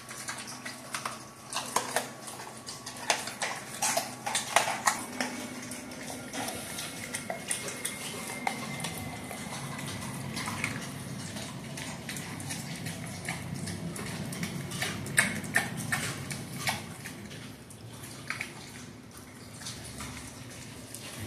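A dog eating raw chicken from a stainless steel bowl: chewing and licking, with many sharp clicks and clinks as its teeth and the food knock and scrape against the metal bowl, busiest early on and again a little after the middle.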